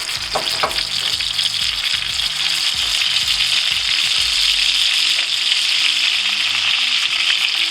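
Beef burger patty sizzling in hot bacon grease in a cast iron pan: a steady frying hiss that swells about a second in and then holds.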